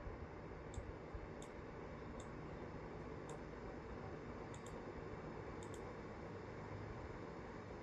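Computer mouse clicking: about eight sharp clicks at uneven intervals, two of them quick double-clicks, over a steady low hiss of room noise.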